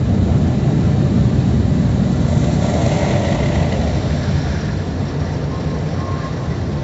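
Automatic tunnel car wash machinery heard from inside the car: a steady, loud mechanical noise, swelling briefly about three seconds in.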